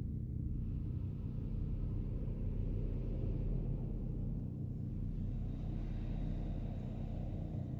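Deep, steady rumbling drone made of several held low tones, swelling slightly midway.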